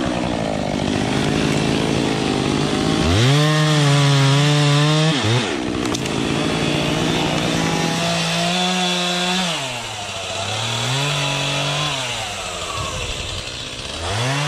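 Two-stroke chainsaw cutting wood, revving up to a high, held pitch and dropping back to a lower idle note several times.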